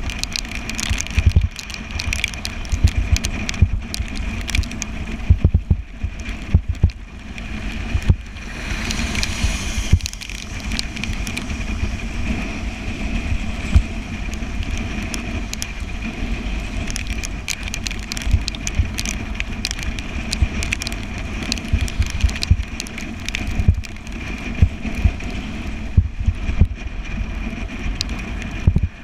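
Bicycle ridden over rough ground: wind rumbling on the microphone, tyre noise, and frequent sharp knocks and rattles from the bike over bumps.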